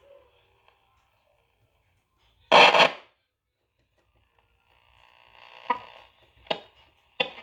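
Arvin 62R98 twelve-transistor radio tuned on the AM band, giving static: a loud burst of noise about two and a half seconds in, then a rising hiss broken by three sharp crackles near the end.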